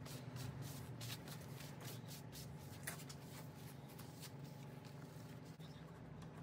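Hands rubbing and pressing masking tape down along a surfboard's rail: a quick, uneven series of faint scuffing strokes over a low steady hum.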